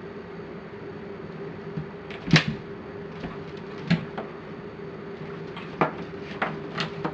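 A border collie and a cat play-fighting on a tile floor: about five sharp knocks and snaps from paws and jaws, the loudest about two and a half seconds in, over a steady low hum.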